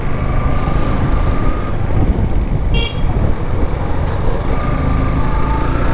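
Motorcycle ride heard through a helmet-mounted action-camera mic: a steady low rumble of wind buffeting and engine running. A vehicle horn gives a brief high toot about three seconds in, and steady horn-like tones sound early and again near the end.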